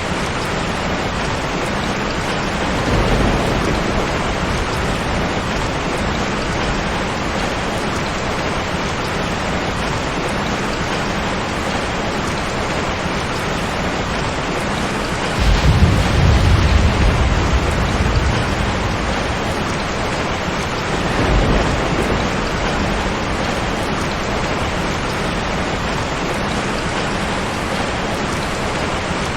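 Steady heavy rain with three rolls of thunder: a low rumble about three seconds in, a stronger, longer one about halfway through, and a smaller one a few seconds later.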